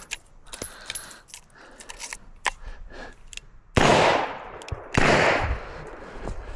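Light, scattered clicks from a Smith & Wesson 627 revolver being handled, then two gunshots about a second apart, each with a long echoing tail.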